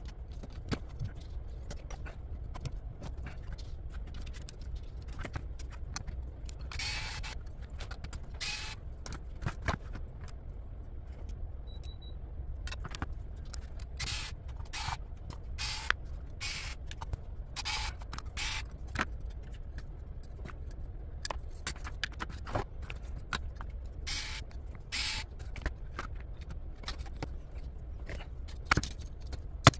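Small RC car parts of plastic and metal being handled and moved about on a workbench: scattered clicks and knocks, with about a dozen brief scraping sounds, over a low steady hum.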